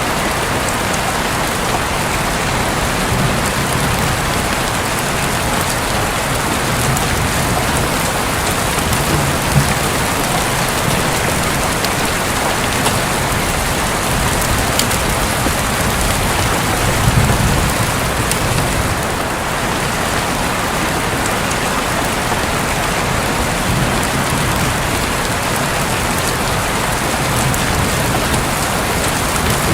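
Heavy rain falling steadily on a roof, with a few sharper drip ticks, and a brief low rumble of thunder a little past the middle.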